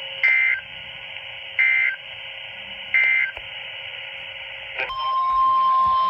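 Three short bursts of Emergency Alert System digital code, the end-of-message signal, coming through a Midland handheld radio's speaker over a steady radio hiss. About five seconds in, a weather alert radio sounds the steady 1050 Hz NOAA Weather Radio alert tone for a new warning.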